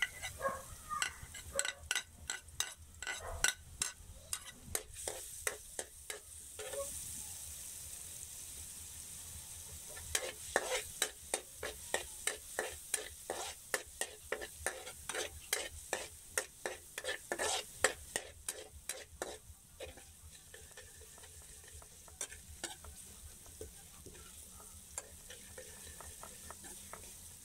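Chopped garlic sizzling in hot oil and margarine in a wok, with a metal spatula scraping and clinking against the wok in quick strokes as it is stirred. The stirring comes in two spells, the second ending about two-thirds of the way through, while the sizzle goes on steadily.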